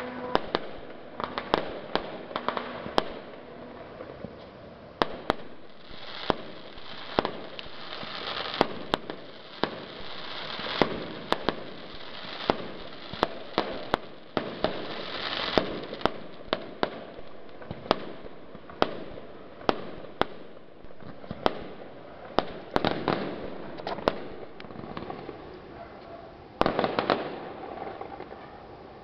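Aerial fireworks bursting in a rapid, irregular series of sharp bangs, one or two a second, with crackling star effects in between. A dense flurry of bangs comes near the end.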